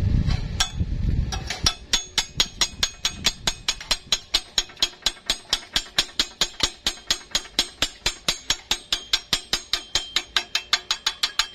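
Steel chipping hammer tapping rapidly on a fresh stick weld on thin square steel tube, knocking the slag off the bead: a steady run of sharp metallic strikes, about four a second, after a low rumble in the first second or so.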